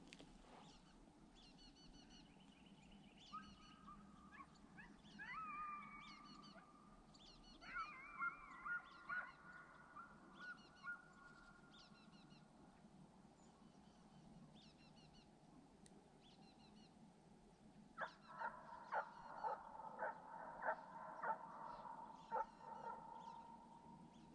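Distant deer hounds baying as they run a deer: long drawn-out bawls, then a run of quicker barks about two a second. Small birds chirp faintly.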